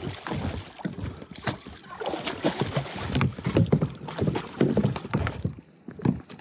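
A hooked kingfish thrashing at the water's surface beside a plastic kayak, with water splashing and sloshing against the hull and irregular knocks and thuds as it is brought aboard.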